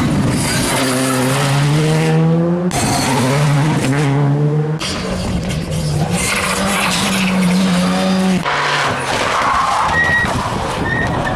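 Rally cars driven flat out through corners, engines revving up hard several times, with tyres squealing and sliding.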